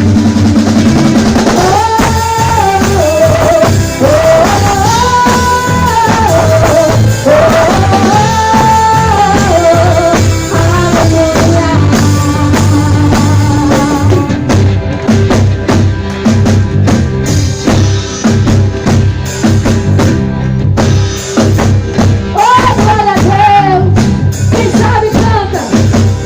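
Live gospel worship band playing at full volume: drum kit and instruments keeping a steady beat under a melody line of long held and gliding notes, which drops out for a stretch in the middle and returns near the end.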